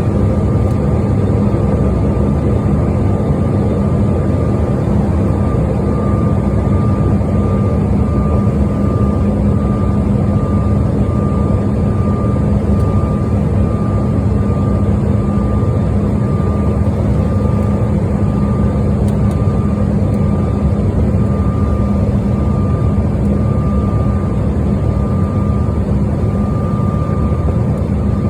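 Airliner cabin noise in flight: the steady roar of engines and airflow heard from inside the cabin, with a steady low hum. A faint high tone pulses evenly from about five seconds in.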